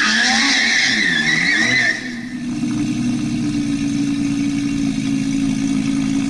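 Car engine revving with a high tyre squeal for about two seconds, then holding a steady engine note.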